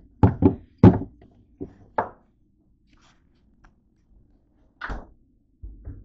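A run of hard knocks and thuds from a can of whipped cream and other items being handled at an open refrigerator's door shelf. There is a quick cluster of three in the first second, then single knocks about two seconds and five seconds in.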